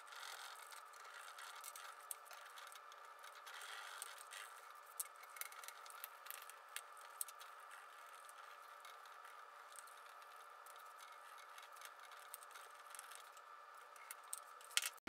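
Faint, sped-up rubbing and scraping of fingers blending oil pastel on paper and the sheet sliding on a cutting mat, with many small clicks and a few louder ticks.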